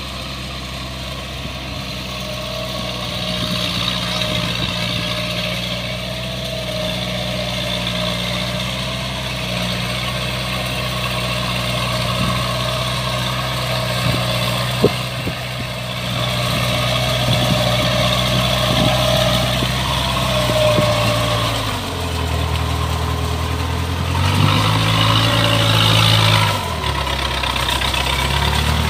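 Engine of a tracked rice-hauling carrier loaded with rice sacks, running steadily as it crawls along. Its pitch drops a little about twenty-two seconds in, rises briefly, then drops again; a single sharp click comes about halfway.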